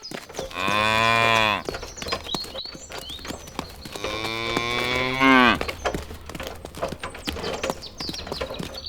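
A cow mooing twice, two long calls a few seconds apart, with birds chirping faintly.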